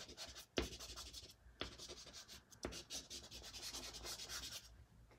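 Pastel scratching and rubbing across pastel paper in a series of short strokes, several starting sharply about a second apart.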